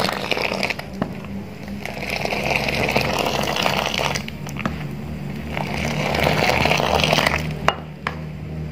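Tea poured again and again from a steel bowl into a steel pot, each pour a splashing swell lasting a second or two, with a few sharp clinks of metal.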